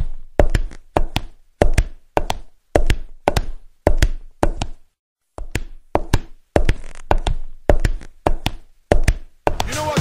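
Footsteps in wooden clogs climbing stairs, each step a sharp hollow knock, about two a second, with a brief pause about halfway through.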